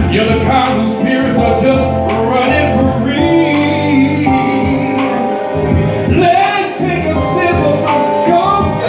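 Men singing a song together into microphones, amplified through a PA, over steady instrumental backing with a regular beat.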